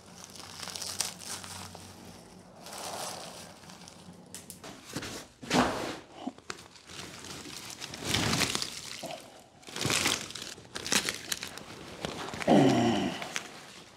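Termite-eaten wood from an old couch frame crumbling and crackling in leather-gloved hands, then the couch's old upholstery rustling and tearing in short bursts as it is pulled about. Near the end, as the couch section is heaved up, there is a short, loud sound that falls in pitch.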